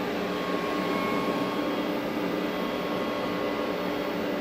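Moving-head stage light's tilt motor swinging the head at full speed, a steady whine over the whir of the fixture's cooling fan.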